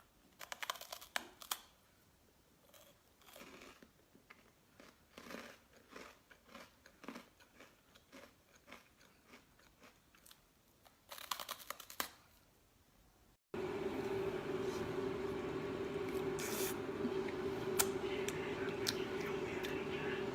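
Crisp purple rice stick being bitten and chewed close to the microphone: irregular crunches, with a quick run of them near the middle. About thirteen seconds in, the sound cuts to a steady hum with background noise and a few sharp clicks.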